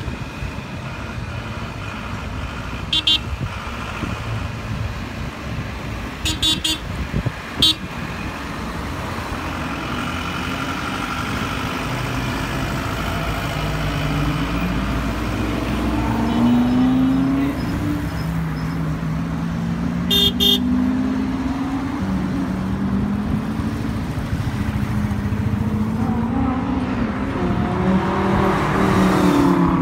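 Lamborghini engines running and revving in a slow convoy, the pitch rising and falling and the sound growing louder in the second half. Short horn toots sound a few times: once about 3 s in, a cluster around 6 to 7 s, and again about 20 s in.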